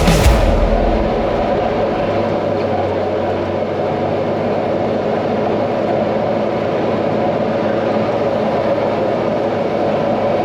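Engine of a heavy snow-clearing vehicle running steadily under load, a constant low drone with no change in speed.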